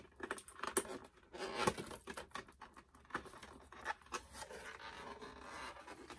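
Handling noise from a cardboard doll box moved close to the microphone: an irregular run of scrapes, rustles and small knocks.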